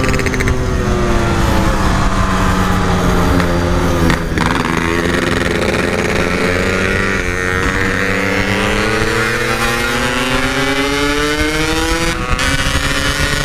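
Yamaha RX-King two-stroke motorcycle engine, bored out to 144 cc and fitted with a stock-style packed exhaust, running while ridden. Its pitch sags over the first few seconds, breaks briefly about four seconds in, then climbs steadily and breaks again near the end.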